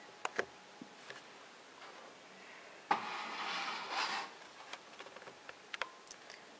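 Handling noise from a plastic Playmobil camper van toy: a couple of small clicks, a rubbing rustle about three seconds in lasting just over a second, then more light scattered clicks.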